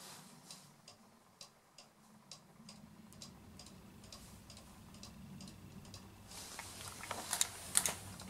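A cuckoo clock ticking steadily, about two ticks a second. Near the end comes a rustle of handling with a few sharp clicks, louder than the ticking.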